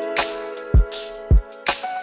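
Background music with a steady beat: held chords over a recurring kick drum and sharp high percussion hits.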